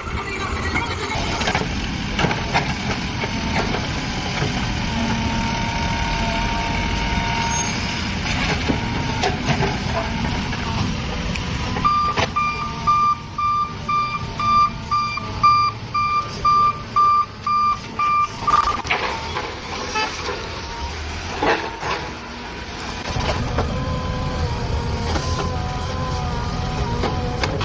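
Backhoe loader's diesel engine running steadily. In the middle, its reversing alarm beeps for about six seconds, about two beeps a second.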